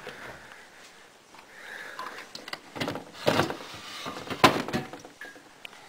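Refrigerator door opened and a metal Heineken mini keg handled and pulled from its shelf. A run of knocks and clatter, the loudest a sharp knock about four and a half seconds in.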